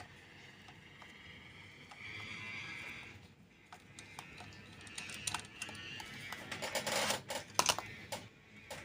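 Quiet background music, with a cluster of sharp clicks and taps near the end.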